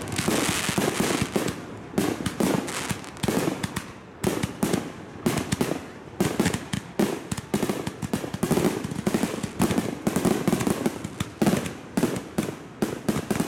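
Aerial fireworks shells bursting overhead in rapid succession, a nearly continuous string of bangs several a second.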